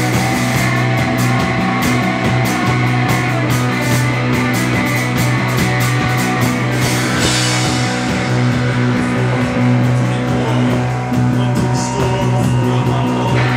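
Live rock band playing loudly: electric guitar and drums over a held low note. Quick, even cymbal strokes give way to a ringing cymbal wash about halfway through.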